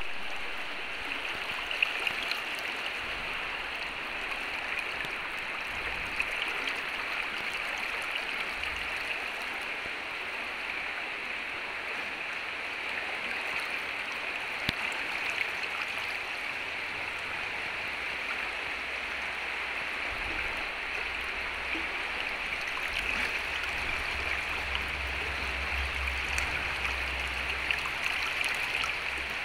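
A swollen, fast-flowing creek in flood, rushing steadily.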